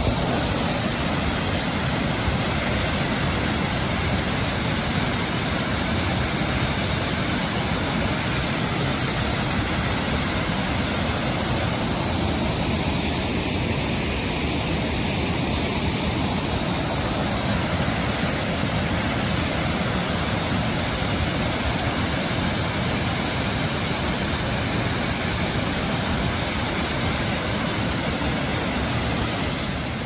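Steady rush of Russell Falls, a tiered waterfall, pouring onto the rocky creek below it.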